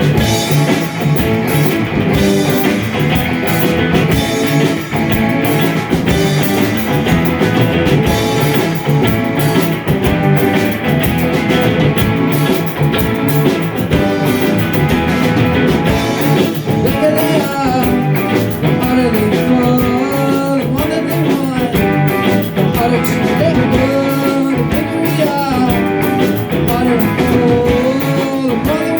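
Live rock band playing, guitars over bass and drums, with a lead melody that bends in pitch through the second half.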